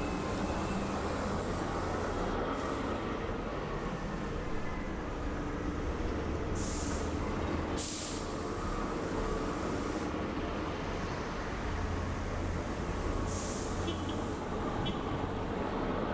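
Heavy military vehicle engines running with a steady low rumble, broken three times by short bursts of hissing air.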